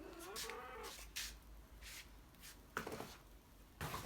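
A pet cat gives one rising meow, followed by several short, breathy or scuffing noises.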